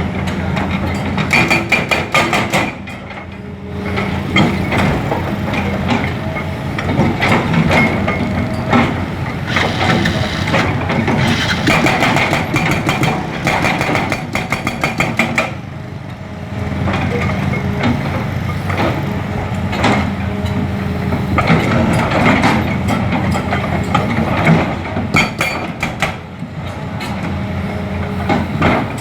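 Excavator-mounted hydraulic breaker hammering asphalt in rapid strokes over the excavator's steady running engine. The hammering stops briefly about three seconds in and again around fifteen seconds in.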